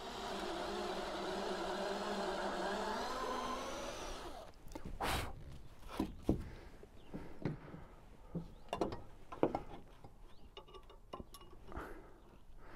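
Cordless drill running steadily for about four and a half seconds while fixing a steel solar roof hook to the rafter, then stopping. After it, a few scattered knocks and clicks as the metal hook and tools are handled against the roof tiles.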